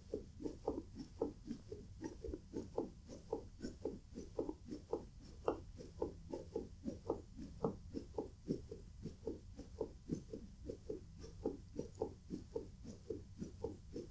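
Rapid, steady chest compressions on a plush dog CPR mannequin. They make a run of short, soft, even pulses at about two compressions a second, roughly 110 a minute, within the recommended CPR rate.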